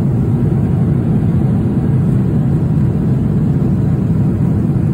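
Steady low drone of an airliner in flight, its engines and rushing air heard from inside the passenger cabin.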